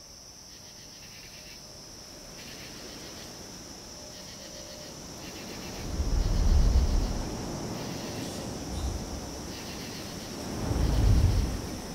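Sound-design effects laid over FPV drone footage: a steady high-pitched insect-like hum throughout, with two deep swells, each about a second long, about six seconds in and near the end.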